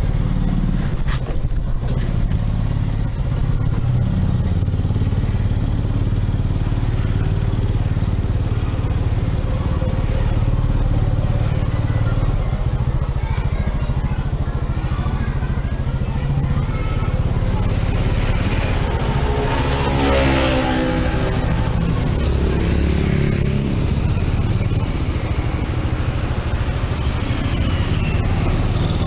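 Motorcycle engine running steadily at low riding speed. About two-thirds of the way through, a louder passing sound swells and fades.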